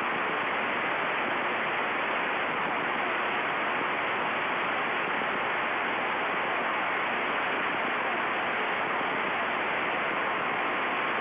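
Steady hiss of radio static from the aircraft's receiver, heard through the intercom while it is tuned to the practice ELT frequency during a direction-finding search.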